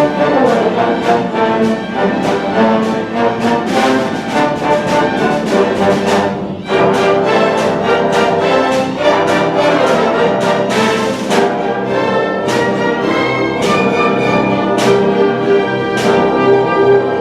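Symphony orchestra playing, with brass prominent and a steady beat of sharp strikes. The music briefly drops out about six and a half seconds in, then comes back in full.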